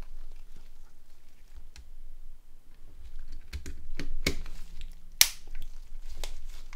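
Small sharp plastic clicks and taps from a Nokia 6290's parts being handled and pressed into place during reassembly, with a few louder clicks in the second half.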